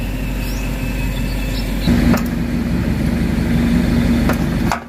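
Excavator diesel engine running steadily. It gets louder about two seconds in, with a few sharp clicks, and drops off abruptly near the end.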